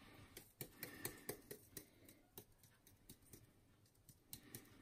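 Faint, irregular small clicks and light taps of hands handling food and kitchenware while herbs are added to the dish, denser in the first two seconds and again near the end.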